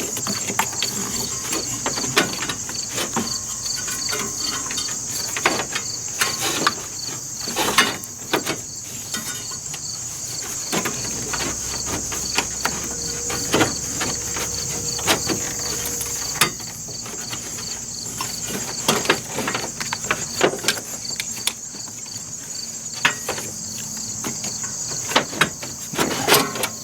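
Jeep Cherokee XJ plastic fan shroud being worked back into place around the fan, with scattered knocks, clicks and scrapes as it is slid down and pushed into its bottom notches. Under it, a steady high-pitched chirring of insects.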